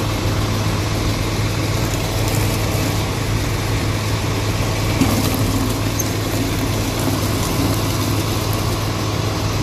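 Water from an outdoor tap running into a plastic mop bucket, over the steady hum of an idling vehicle engine.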